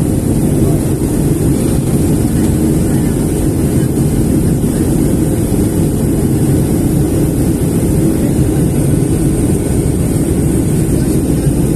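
Jet airliner cabin noise heard inside the cabin at a window seat: a steady, loud, unbroken rush of engine and airflow noise, heaviest in the low range, with a faint high hiss above it.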